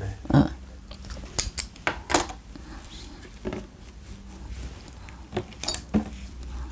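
Scattered light clicks and taps of a pen writing on paper laid on a wooden table.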